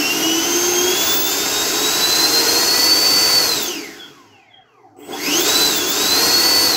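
Freewing Avanti's 80mm electric ducted fan spooling up under throttle to a high, steady whine, winding down about three and a half seconds in, then run up quickly again about five seconds in and held near full throttle.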